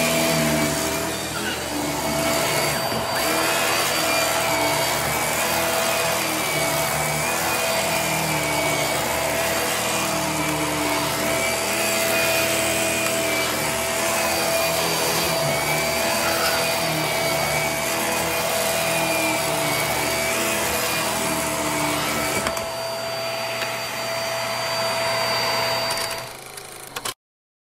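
Hart corded bagless upright vacuum cleaner running on carpet: a steady motor whine whose pitch wavers slightly. It gets a little quieter near the end, then cuts off abruptly.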